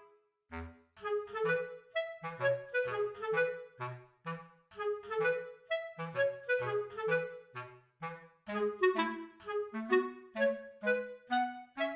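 Background music: a quick, bouncy tune of short clarinet-like woodwind notes over a plucked bass line.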